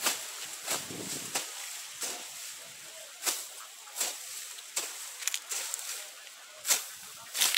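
A hoe chopping and scraping weeds out of hard, dry ground: sharp strikes at uneven intervals, roughly one a second, the loudest two near the end.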